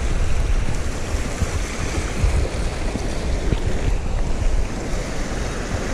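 Small waves washing over shoreline rocks, with wind buffeting the microphone in a low, gusting rumble.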